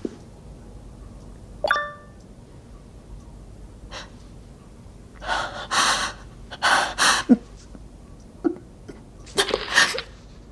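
A short single chime of a computer notification, then a woman gasping and breathing sharply several times, the breaths coming in pairs, as she reads an email.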